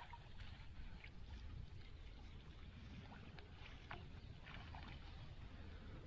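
Faint water sounds: a low steady rumble with scattered small drips and ticks.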